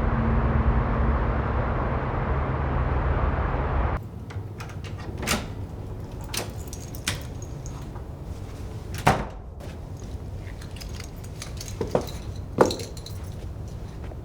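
Steady low traffic-like noise that cuts off abruptly about four seconds in. A quieter room follows, with half a dozen scattered sharp clicks and clinks, the loudest about nine and twelve seconds in.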